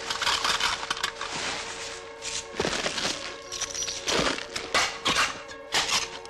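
Film sound effects of dense crunching and crackling, with several louder cracks, over a steady held tone.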